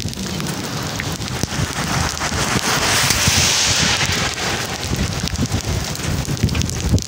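Rain falling on an asphalt road, a steady hiss that swells about three seconds in and then eases, with wind buffeting the microphone underneath.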